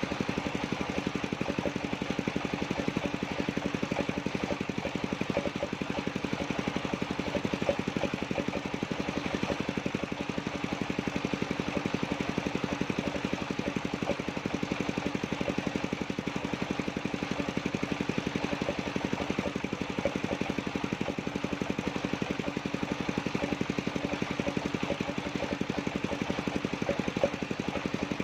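Engine of a circular-saw sawmill running steadily with rapid, even firing pulses and a constant hum, with no change in load.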